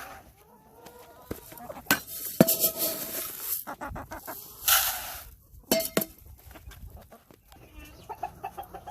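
Chickens clucking now and then, with scattered clinks and knocks and a couple of bursts of rustling hiss.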